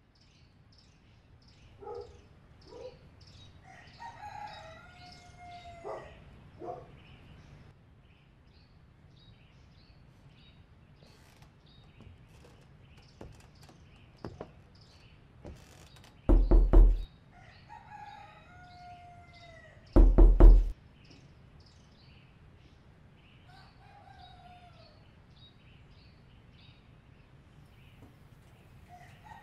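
A rooster crowing several times, each crow falling in pitch at the end, over a steady scatter of short high chirps. Two loud, short blasts about four seconds apart, around the middle, are the loudest sounds.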